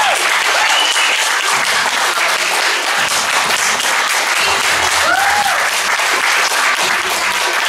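Audience clapping and cheering, with a few short rising-and-falling whoops.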